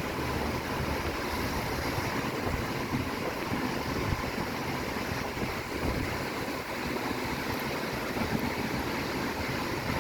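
Strong storm wind blowing hard: a steady rushing noise with a gusty low rumble.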